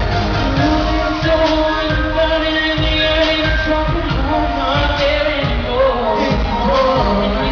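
Live pop song: a male lead singer sings over a full band with a steady drum beat, in a large concert hall.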